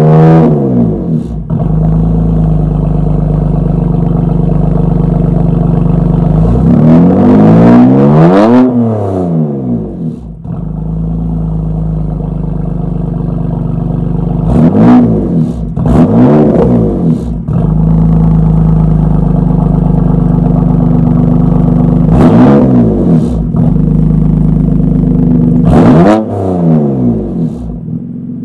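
BMW M2 Competition's twin-turbo inline-six, breathing through a Remus race rear-section exhaust, idling with the car standing still and blipped hard five times. Each rev rises and falls quickly, with sharp cracks near the top, before it drops back to a steady idle.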